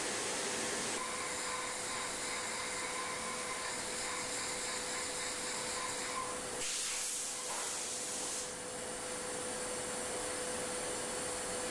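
Road-simulation test rig running under a car's front axle: a steady machine hiss with a constant hum tone, turning brighter and more hissing for about two seconds past the middle.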